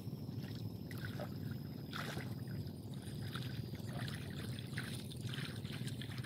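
Water sloshing and splashing softly, over and over, as a man wades waist-deep through a river, over a steady low rumble.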